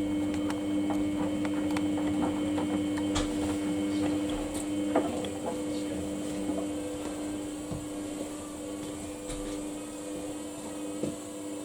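Samsung washing machine running a Daily Wash 30 cycle: a steady motor hum with scattered clicks and knocks from the turning drum.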